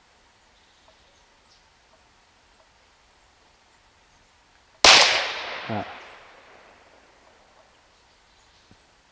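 A single shot from a .22 PCP air pistol built on a Huben K1 action: one sharp crack about five seconds in that rings on and dies away over about two seconds.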